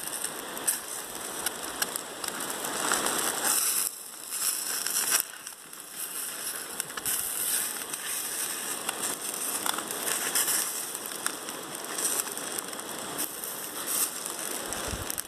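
Eggs sizzling and crackling in oil on a hot carbon steel griddle over a camp stove, with a metal spatula scraping across the griddle as it slides under them.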